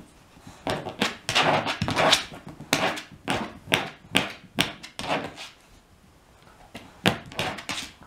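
Shiba Inu sniffing hard at a person's closed fists to find which hand hides a treat: quick, noisy sniffs and snuffles about four a second, mixed with pawing at the hands. They stop for about a second, then a few more sniffs come near the end.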